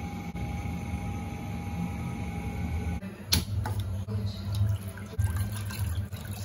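A steady low hum, then about three seconds in a sharp click, followed by water bubbling and crackling at a boil in a stainless steel pan.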